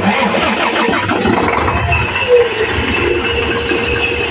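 Mitsubishi 6M70 inline-six diesel engine bursting into life and running steadily with no misfire, started with the help of contact cleaner because it is otherwise hard to start. A faint steady whine joins about two seconds in.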